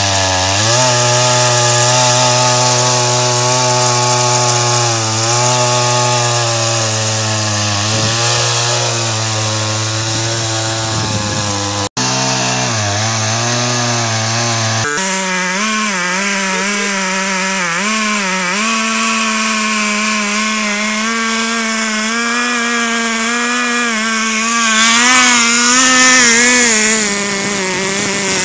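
Two-stroke petrol chainsaw running at high revs in a frame chainsaw mill, ripping lengthwise through a log to cut a plank. Its pitch dips and recovers as the bar takes the load of the cut, with a momentary break about twelve seconds in.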